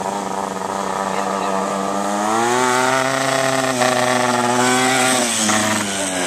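Vehicle engine running, its pitch rising about two seconds in, holding, then dropping near the end as it passes.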